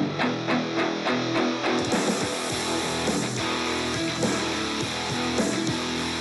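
Background music led by guitar: a run of plucked notes, about four a second, then a fuller band comes in about two seconds in.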